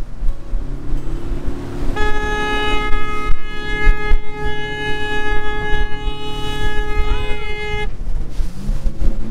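Dory's outboard motor running hard under wind and water rush as the boat drives in through the surf toward the beach. About two seconds in, a steady horn blast starts and holds for about six seconds.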